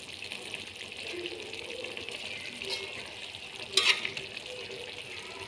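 Thick balado sauce with fish and stink beans simmering in a wok, giving a steady sizzling hiss as a metal spatula stirs it. About four seconds in, the spatula knocks briefly against the pan.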